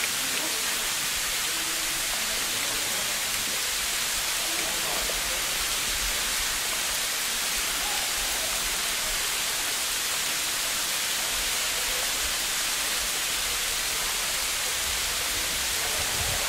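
A steady, even hiss that does not change in level throughout.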